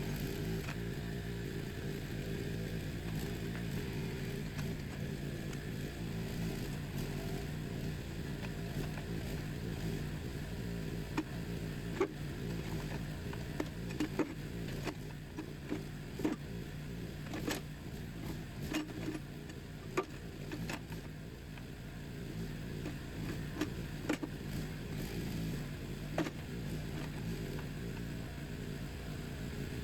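Small gas engine of a Harbor Freight backhoe trencher running steadily as it powers the hydraulics while digging, with scattered sharp knocks through the middle stretch.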